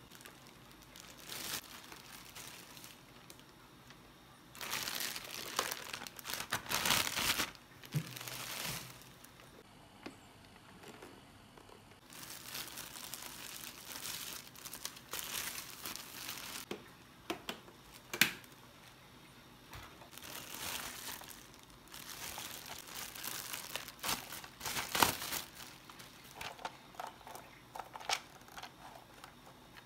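Clear plastic packaging bags crinkling and rustling in irregular bursts as vacuum cleaner parts are pulled out of them, with a few sharp clicks of plastic parts being handled.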